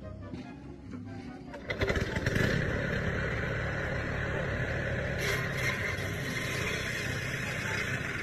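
An engine comes in about two seconds in and then runs steadily, with a low, even drone under a mechanical clatter.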